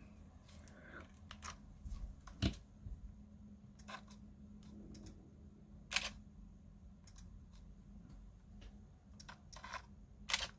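Scattered small clicks and light knocks from a Fujifilm X-T20 camera with its newly mounted pancake lens being handled, with the sharpest clicks about six seconds in and near the end and a duller knock about two and a half seconds in.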